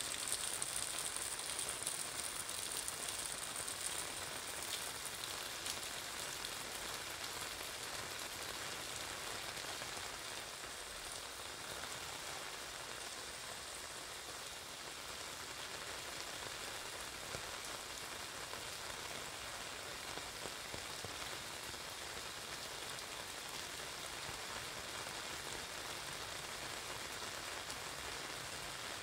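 Steady rain pattering on an umbrella and the wet street, a little heavier in the first few seconds.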